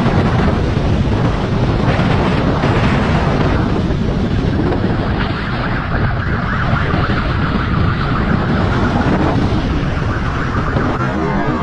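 Wind rushing over the microphone of a camera mounted on a moving motorcycle, with the motorcycle's engine running underneath.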